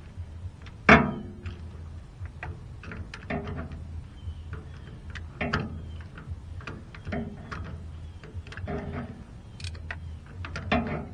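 Steel wrench clicking and knocking against a shear bolt and nut on a rotary cutter's driveline as the nut is threaded on: a short metallic clink every second or so, the loudest about a second in.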